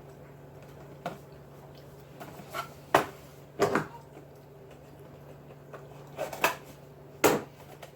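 Several short, sharp knocks and clicks spaced irregularly over a steady low hum.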